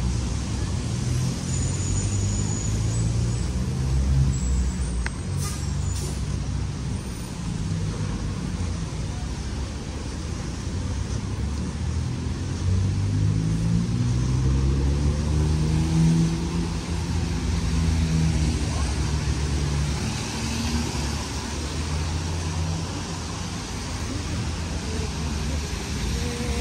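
Street traffic on wet roads: a steady low engine rumble from passing cars and buses, with tyre hiss on the wet surface. About halfway through, one large vehicle's engine rises in pitch in steps as it pulls away.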